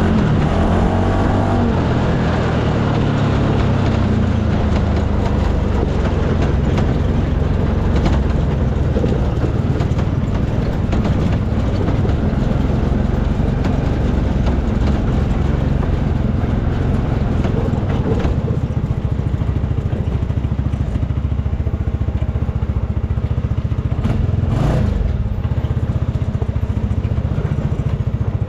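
UTV engine running under way, its pitch falling over the first few seconds and then holding steady, with an occasional knock.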